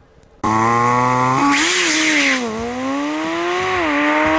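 An engine revving, its pitch climbing and falling several times, starting suddenly about half a second in, with a burst of hiss in the second second.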